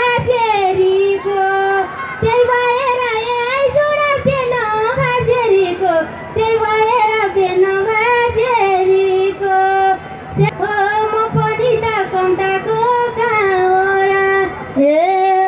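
A woman singing a Nepali dohori folk verse through a stage microphone and PA, with long held notes and sliding ornaments, over short low beats.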